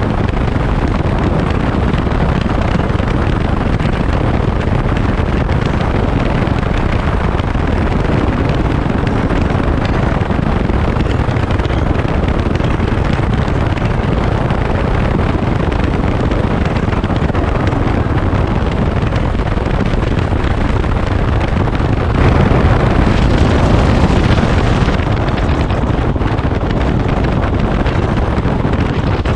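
Wind rushing over the microphone of a moving motorcycle, with engine and road noise underneath in a steady roar; it swells briefly about three-quarters of the way in.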